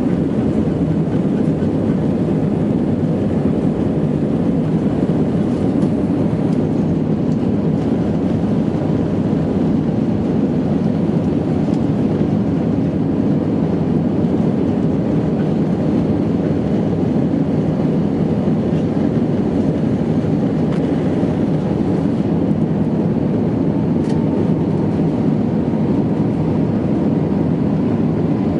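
Airbus A320 jet engines at takeoff power: a loud, steady rumble with a faint whine above it.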